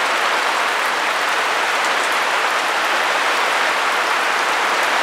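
Heavy rain falling steadily in a downpour, an even hiss with no let-up.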